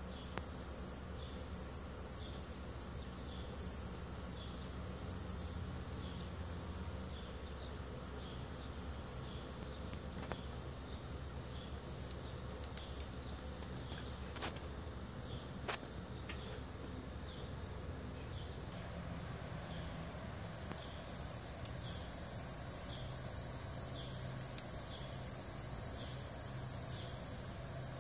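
Steady high drone of a summer insect chorus, swelling a little near the end, with a faint chirp repeating about once a second and a couple of small clicks about halfway through.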